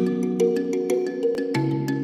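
Background music: a mallet-percussion melody with a quick steady beat over sustained low chords that change about every half second to second.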